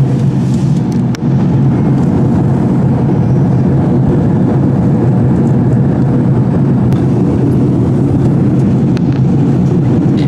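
Loud, steady low-pitched din of a lounge bar, with bass-heavy music playing.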